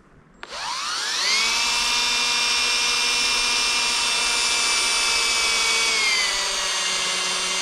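Cordless drill winding up and running steadily as it drills a pilot hole through a BTE Powerglide transmission case. Its whine dips slightly in pitch about six seconds in.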